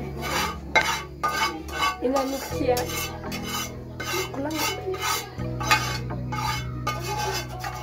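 A metal spoon stirring and scraping in a metal cooking pot, a sharp stroke about twice a second.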